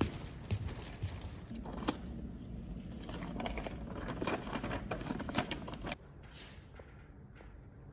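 Handling noises: rustling with light clicks and taps, which drop away suddenly about six seconds in, leaving only a few faint clicks.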